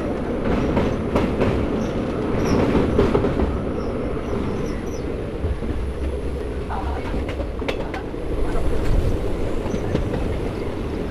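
Moving passenger train heard from the coach's open window or door: a steady rumble and rush of wheels on the track, with runs of clicks as the wheels cross rail joints in the first few seconds and again about two-thirds of the way through.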